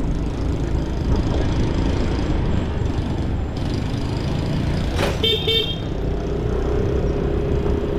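Steady motorcycle engine and road rumble while riding in traffic, with a short vehicle horn toot about five seconds in.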